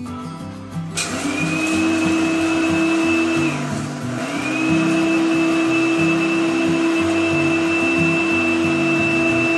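Small electric blade coffee grinder grinding coffee beans. The motor starts about a second in with a rising whine, cuts out briefly partway through, then starts again and runs steadily.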